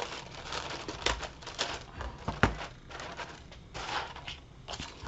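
Crepe paper rustling and crinkling as it is handled and pressed down, with a few sharp clicks from scissors snipping the paper.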